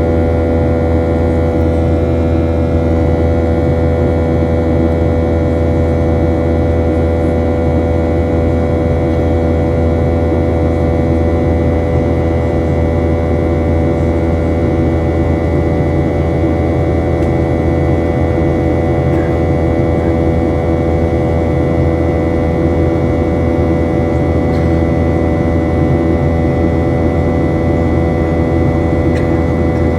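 Boeing 737-800's jet engines running with a steady, unchanging drone and several fixed whining tones over it.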